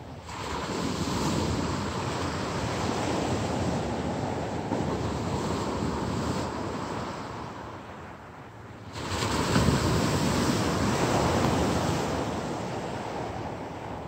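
Ocean surf breaking and washing up a pebble beach in two surges: the first rises at the start and dies away by about eight seconds in, the second, louder one breaks about nine seconds in and slowly fades.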